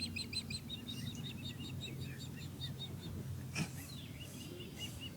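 Osprey calling: a rapid series of short, high whistled chirps, several a second, over a faint steady low hum, with a single click a little past halfway.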